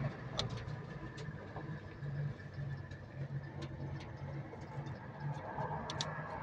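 Caterpillar 320D excavator's diesel engine idling steadily at a set idle of about 1000 rpm, with scattered small metal clicks from a 13 mm spanner tightening the accelerator cable linkage nut.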